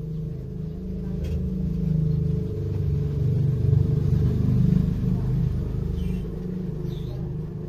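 A low, steady engine rumble that grows louder toward the middle and eases off near the end.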